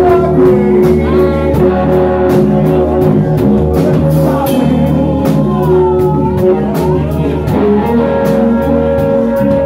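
Live blues-rock band playing: an electric guitar solos with bent, sliding notes over a bass guitar and a drum kit with cymbal hits.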